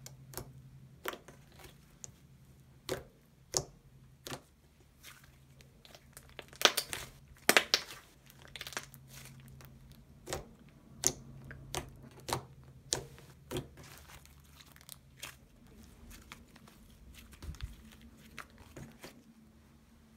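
Thick, sticky inflated clay slime being squished, folded and stretched by hand, giving scattered wet clicks and pops, with denser runs about a third of the way in and again just past halfway.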